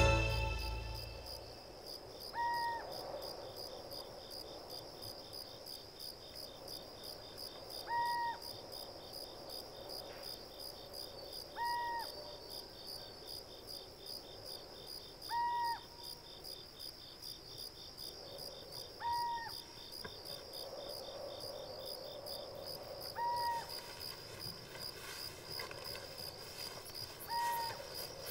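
Night insects, crickets, chirping steadily in a fast even pulse. Over them, a short single-note hoot recurs seven times, about every four seconds.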